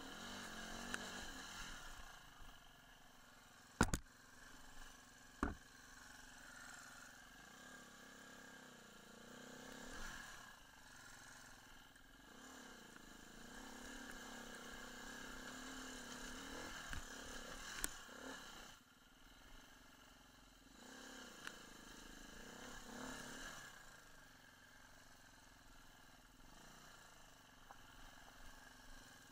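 Dirt bike engine revving up and down as it climbs a rocky trail, with a few sharp knocks about four seconds in, a second and a half later, and again past the middle.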